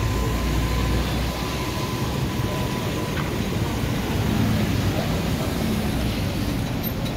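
Steady low rumble of road traffic, vehicle engines running.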